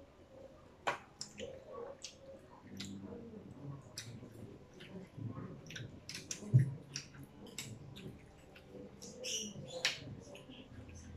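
Close-up eating sounds of children chewing fried chicken and spaghetti: scattered wet mouth clicks, smacks and crackles, with one louder dull knock about six and a half seconds in.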